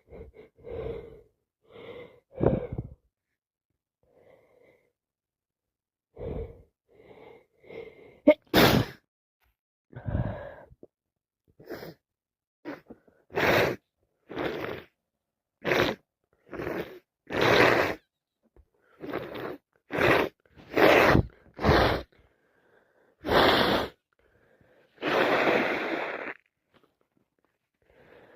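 A person sneezing over and over. A run of short, catching breaths comes first, then from about eight seconds in a string of about a dozen loud, sharp sneezes, with a longer burst near the end.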